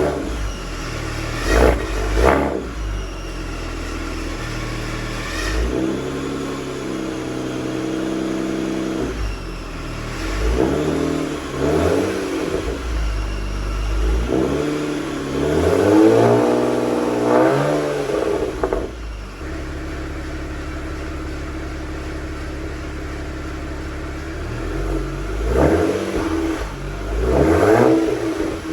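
2007 BMW 335i's N54 twin-turbo inline-six running through a modified exhaust, with the secondary catalytic converters replaced by resonators and opened-up mufflers. The engine is blipped up and back down several times, with steady idling in between, longest in the middle.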